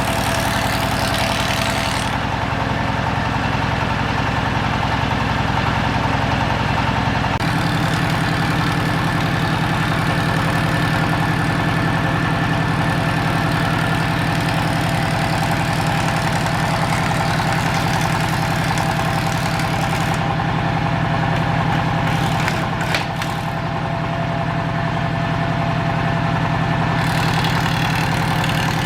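A woodworking machine's motor running steadily with a constant hum. Its tone shifts abruptly a few times.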